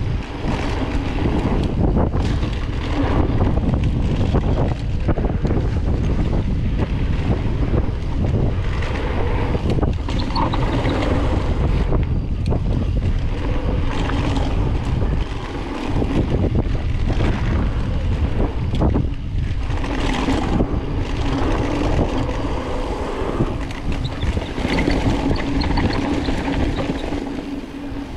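A mountain bike descending a rough dirt bike-park trail: continuous wind noise on the microphone over tyre noise, with frequent rattles and knocks from the bike over the rough ground.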